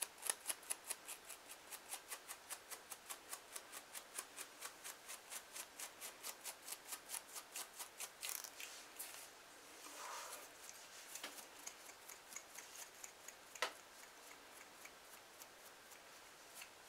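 Fine-tooth comb scraping along a dry, flaky scalp, lifting dandruff flakes: quick, even strokes about four or five a second for the first half, then slower, scattered scrapes with one sharper click about two-thirds of the way in.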